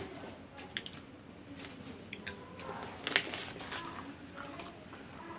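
Popcorn being crunched and chewed, eaten by mouth straight off a sheet of newspaper, with scattered crisp crackles; the sharpest comes about three seconds in.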